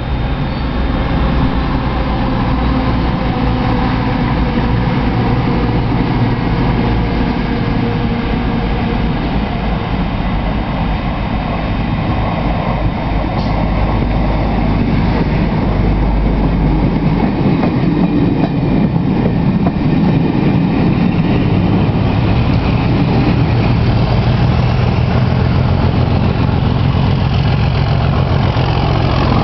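A Class 37 diesel locomotive's English Electric V12 engine working hard as it pushes a test train from the rear, with the train's wheels running over the rails. It grows gradually louder towards the end as the locomotive draws near.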